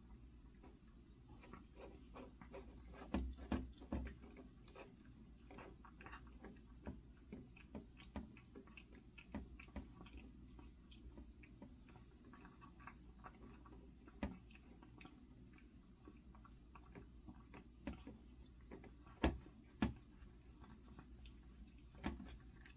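A cat recovering from tooth-extraction surgery for stomatitis, eating: faint, irregular small clicks and chewing sounds, with a few louder knocks a few seconds in and again near the end.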